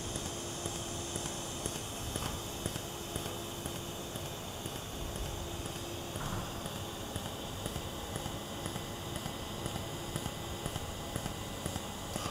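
Pulsed TIG welding arc on stainless steel, a fusion weld without filler rod: a steady buzz with a regular beat of about two to three pulses a second.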